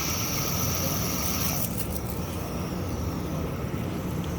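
A spinning fidget toy whirring with a high, steady whine that stops about one and a half seconds in, over a steady low rumble.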